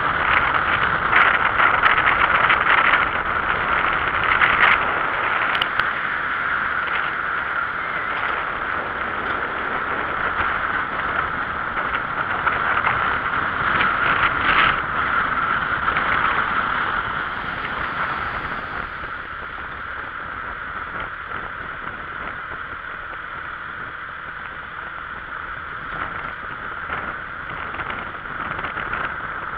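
Steady road and wind noise from a moving vehicle, with scattered light knocks in the first half, easing to a quieter level about two-thirds of the way through.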